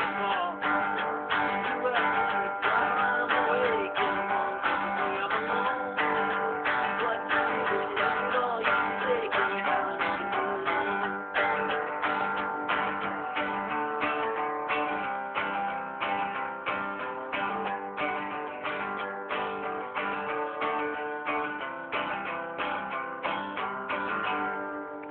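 Acoustic guitar strummed in a steady rhythm, about two strums a second, growing slowly quieter toward the end.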